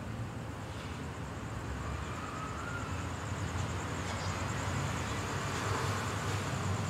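Outdoor city ambience: a steady low rumble of distant traffic with a noisy hiss, slowly growing louder.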